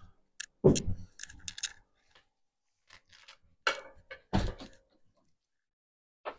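Scattered knocks, thuds and light clicks of household objects being handled and set down, with louder thunks about a second in and again about four and a half seconds in.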